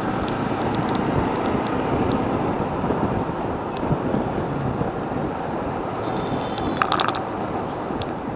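Steady wind and road noise from riding a Yamaha R15 V3 motorcycle in traffic, its 155 cc single-cylinder engine running underneath. A short cluster of higher, sharper sounds comes about seven seconds in.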